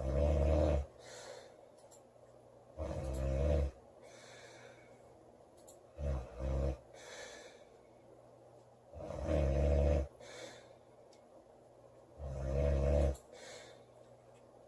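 A girl snoring loudly: five rattling snores about three seconds apart, the middle one broken in two, each followed by a softer breath out.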